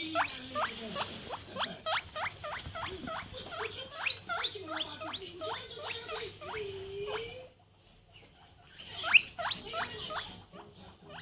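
A small animal squeaking over and over: short rising squeaks, about three a second, that stop for about a second two-thirds of the way through and then start again.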